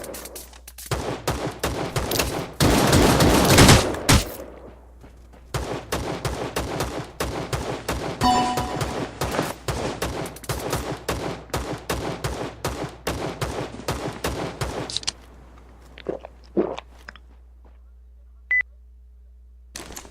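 Rapid runs of sharp bangs like gunfire: two dense bursts at first, then a fast, even series of shots that stops suddenly about three-quarters of the way through, followed by a couple of single thumps and a short beep.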